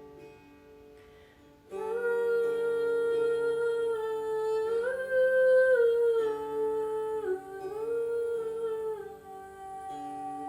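Meditative humming: a voice comes in about two seconds in and holds long notes, rising about halfway through and dipping twice near the end. Underneath is a steady instrumental drone with plucked strings.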